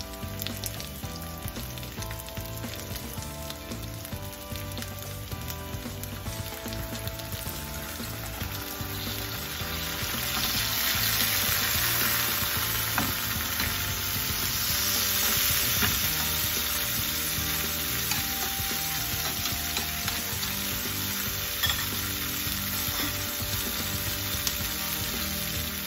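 Pork steak and sliced onions sizzling in a frying pan on high heat with soy sauce added. The sizzle gets louder about ten seconds in and stays strong for several seconds.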